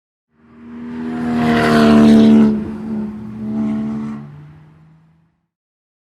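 A race car passing by fast with its engine at high revs: the engine note rises to a loud peak about two seconds in, drops in pitch as the car goes past, swells briefly again near four seconds, then fades away.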